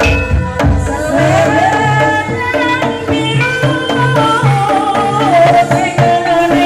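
Live jaranan ensemble music: hand drums keep a repeating beat, and a wavering, gliding melody line comes in about a second in over sustained tones.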